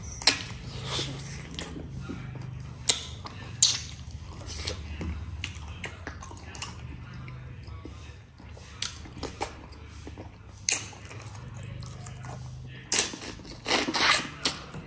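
Close-miked eating sounds: a person chewing mutton and rice, with short wet mouth clicks and smacks scattered throughout and a cluster of them near the end. A low steady hum runs underneath.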